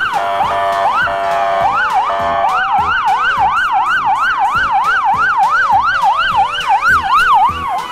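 Police car sirens, more than one sounding at once: a slow rising-and-falling wail, joined about two and a half seconds in by a fast yelp sweeping up and down about three times a second.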